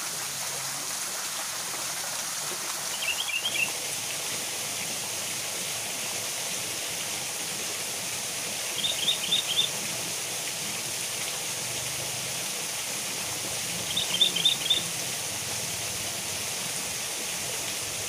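Steady rush of a small waterfall pouring into a pool, with a bird calling a quick run of five or six high notes three times.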